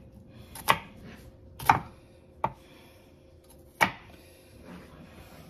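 Chef's knife chopping an onion on a wooden cutting board: four separate strokes, each a sharp knock, about a second apart.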